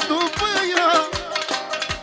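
Manele band playing an instrumental solo: a fast, ornamented lead melody with wavering pitch over a steady drum beat.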